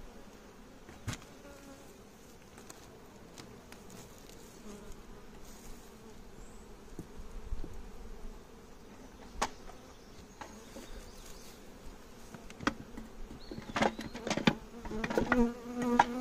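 Honey bees buzzing around an open hive, a steady hum, with a few sharp knocks of hive equipment being handled. In the last couple of seconds the buzz grows louder, as bees come close, among a quick run of knocks.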